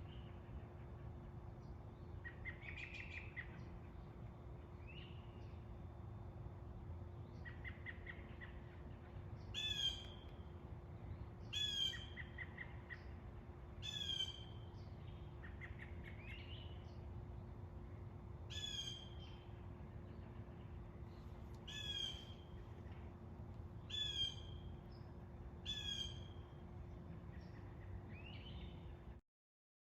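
Wild birds calling in a wooded yard: one bird repeats a short, sharp call about every two to three seconds, while another gives short trilled chirps now and then. The sound stops abruptly about a second before the end.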